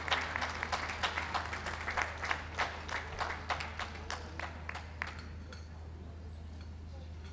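Audience applauding with scattered hand claps that thin out and die away about five seconds in.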